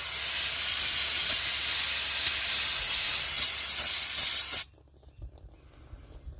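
Steady hiss of a spray blasting dirt and nesting critters out of rusted truck brake parts, cutting off suddenly about four and a half seconds in.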